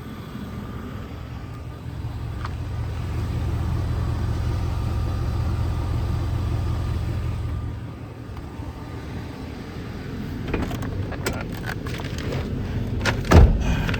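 Ford F350 service truck's 6.2-litre gas engine running with a steady low rumble, then a string of clicks and knocks from handling the cab, ending in a heavy thump like a door shutting near the end.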